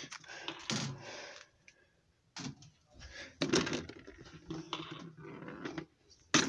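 Handling noise: irregular knocks, clatter and rustling as small pet toys are moved and set down by hand, with a few sharper taps about two and a half, three and a half and six seconds in.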